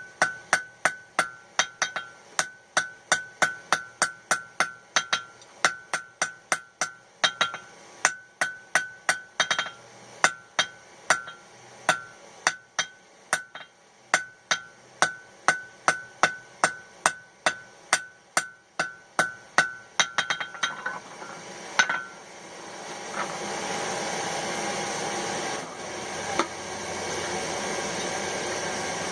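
Hand hammer forge-welding hot mild steel on an anvil: a steady run of blows, about two to three a second, each with a bright anvil ring, setting a flux-coated weld. The hammering stops about two-thirds of the way in, and a steady rushing noise from the forge follows as the piece goes back to heat.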